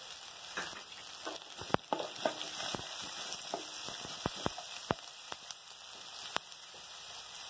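Chopped carrot, green beans and onion sizzling in oil in a steel kadai, stirred with a wooden spatula that knocks against the pan in scattered sharp clicks.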